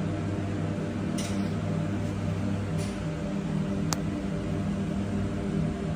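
Steady multi-tone hum of a supermarket's refrigerated display cases and ventilation, with three brief clicks about one, three and four seconds in.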